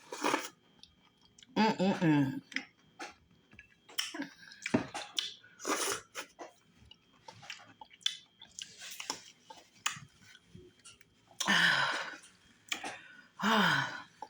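Close-miked chewing of fufu with okra stew: wet mouth clicks and smacks scattered throughout, with three brief voiced sounds from the eater, near 2 s, about 12 s and just before the end.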